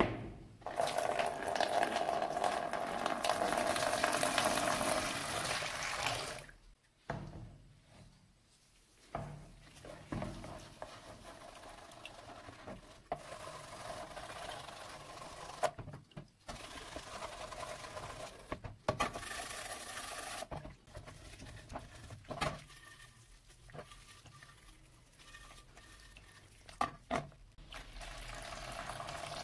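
Liquid poured into a plastic paint tray, loud and steady for about six seconds. Then quieter splashing and sloshing as a rusty steel trowel is moved through the liquid in the tray, with scattered knocks and clicks of the tool against the plastic.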